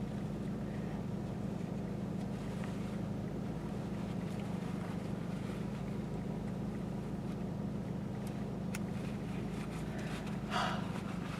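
Steady low hum of a car idling, heard from inside the cabin, with a single click near the end and a brief soft noise just after it.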